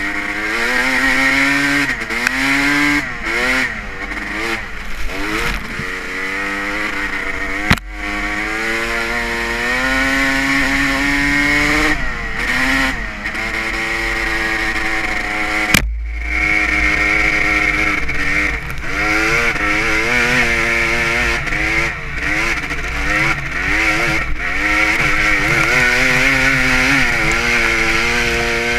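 Honda CR250R two-stroke single-cylinder motocross engine under way, its pitch rising and falling over and over as the throttle opens and closes. Two sharp clicks come about eight and sixteen seconds in.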